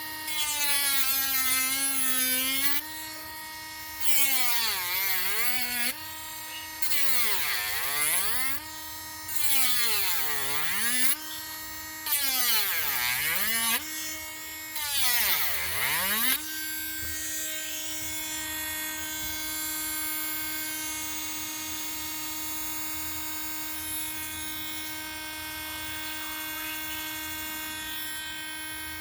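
Handheld Dremel rotary tool with a routing bit running at high speed. Six times in the first sixteen seconds its pitch sags and a rasping cutting noise rises as the bit bites into the wooden lure, with short gaps between cuts. After that it runs steadily with no load.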